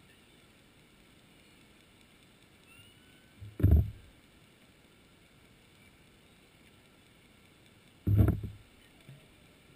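Two loud, dull, low thuds about four and a half seconds apart, picked up by an underwater camera over a faint steady hiss.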